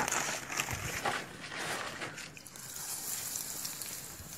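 Battered fish frying in hot oil in a steel kadai, a steady high sizzling hiss that sets in about halfway through, after a couple of seconds of irregular wet clicks.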